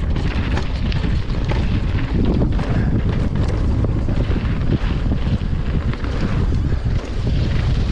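Wind rushing over a chest-mounted camera's microphone as a downhill mountain bike runs fast down a loose gravel trail, with the bike and tyres rattling over stones throughout.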